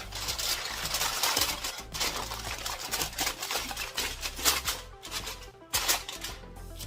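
Aluminium foil crinkling and rustling in irregular crackly bursts as it is torn off and handled, over background music.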